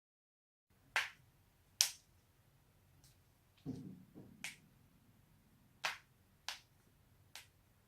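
Spinal joints cracking: six short, sharp pops spaced irregularly over several seconds, with a duller low thump and rustle about three and a half seconds in.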